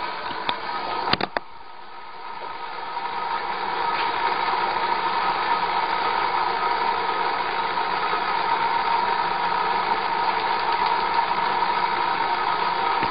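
Van de Graaff generator's electric motor and rubber belt running with a steady whine. A couple of sharp knocks come about a second in, after which the running sound dips and builds back up over the next two seconds.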